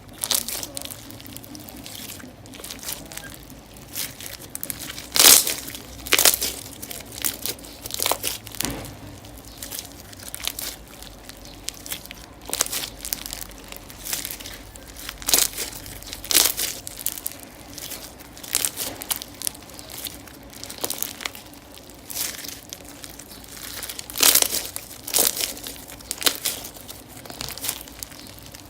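Slime being squished and pulled by hand: a steady sticky crackle with irregular louder pops and crackles every second or so.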